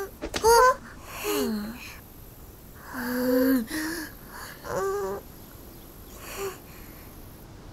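Cartoon characters' wordless voices: about five short babbling, squeaky and gasping vocal sounds with sliding pitch, one dropping in pitch about a second in.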